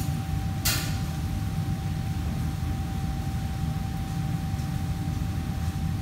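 Steady low rumble of a commercial kitchen's fans and extraction, with a faint steady whine running under it. One sharp metallic clink comes just under a second in.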